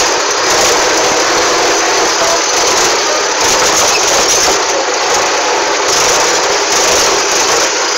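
Zetor 3011 tractor's two-cylinder diesel engine running steadily while the tractor drives along a rough dirt track, heard from the driver's seat.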